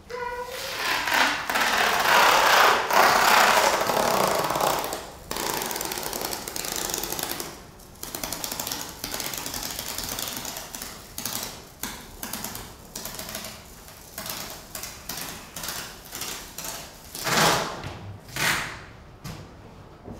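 Improvised experimental noise and percussion. A short ringing tone opens into a loud, dense rattling clatter lasting about five seconds. This thins into a rapid stream of clicks and rattles, with two loud swelling rushes of noise near the end.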